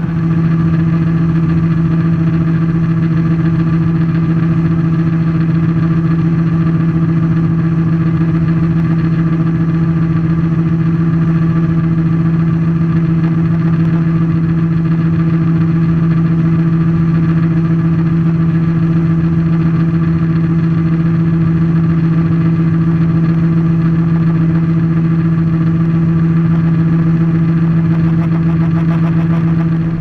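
John Deere T560i combine harvester running at steady working speed while unloading grain: a loud, constant hum on one unchanging low pitch.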